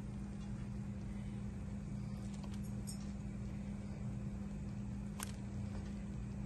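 A steady low hum in the kitchen, with a few light clicks and one sharper click about five seconds in, as fried chicken pieces are added to a pot of simmering butter-chicken gravy.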